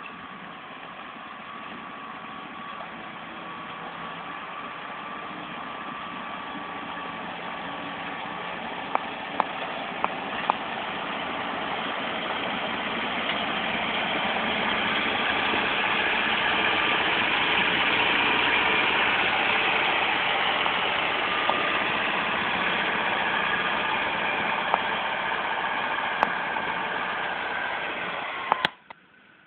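Motor grader's diesel engine running steadily as the grader works the soil, growing louder toward the middle and easing off a little after. A few sharp clicks come about a third of the way in, and the sound cuts off abruptly near the end.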